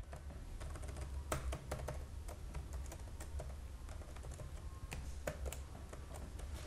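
Typing on a laptop keyboard: quiet, irregular keystrokes, several a second, over a faint low hum.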